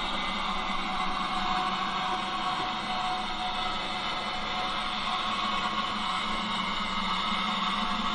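ESU LokSound 5L sound decoder in a gauge 1 model of the E 71 electric locomotive playing a steady electric-locomotive running sound, a hum with hiss, through the model's loudspeaker as it rolls slowly along the track.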